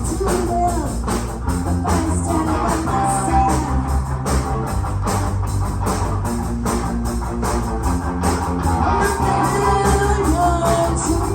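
Live rock band playing, guitar to the fore over a steady beat.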